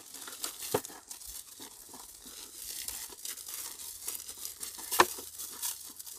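Crinkling plastic snack packet as sev (crunchy fried gram-flour noodles) is shaken and poured into a 5-litre plastic bottle, with scattered crackles and a sharp knock about five seconds in.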